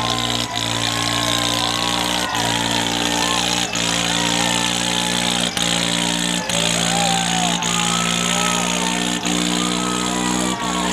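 Tractor diesel engines running at a steady speed, under the many overlapping voices and shouts of a large crowd. The sound briefly drops out several times.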